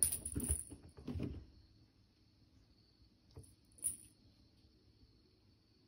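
A cat playing with a small toy on carpeted stairs: soft rustling and muffled thumps as it bats and rolls for the first second and a half, then two faint ticks near four seconds.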